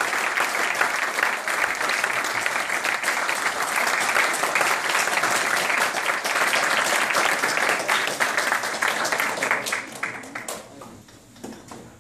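Audience applauding, a dense steady clapping that dies away about ten and a half seconds in.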